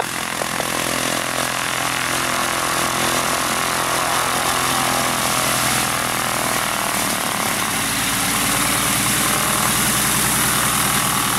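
Van's RV-10 light aircraft taxiing at low power: a steady piston-engine and propeller drone, a little louder after the first couple of seconds.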